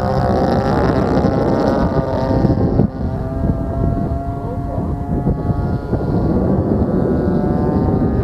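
DLE 20cc single-cylinder two-stroke gas engine of an RC airplane running in flight, a steady buzzing note that falls slightly over the first few seconds and dips in level about three seconds in.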